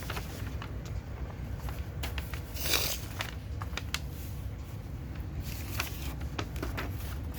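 Small handling noises: a few light clicks and a short scraping rustle about three seconds in, over a steady low background rumble.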